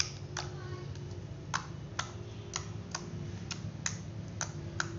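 Glossy white slime being kneaded and pressed by hand, giving about ten sharp clicks and pops, roughly two a second, over a steady low hum.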